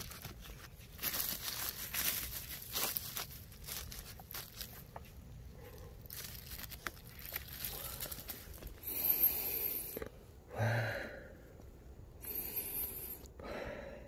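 Irregular bursts of rustling and crunching from dry leaf litter on the forest floor being disturbed, with a short low grunt from a man about two-thirds of the way through.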